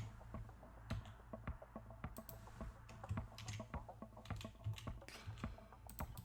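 Irregular, faint clicking of a computer keyboard and mouse over a steady low hum.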